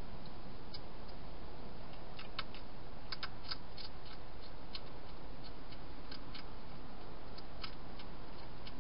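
Wild hedgehog crunching dry food: irregular sharp little clicks, several in quick succession a couple of seconds in and scattered singly after, over a steady hiss.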